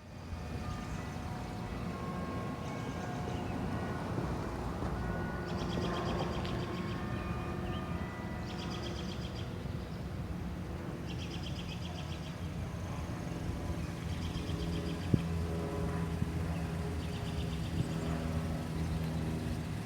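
Outdoor ambience: a steady low rumble, with a songbird repeating a short rapid high trill every two to three seconds.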